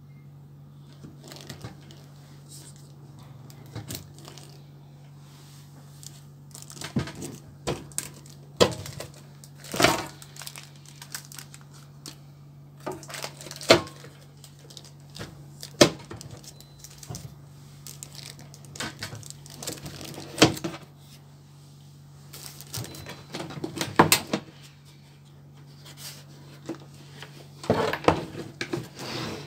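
Protective plastic film on a sandwich toaster's grill plates crinkling and rustling as it is handled, with sharp clicks and knocks of the appliance's plastic housing, loudest in clusters through the middle and near the end. A steady low hum runs underneath.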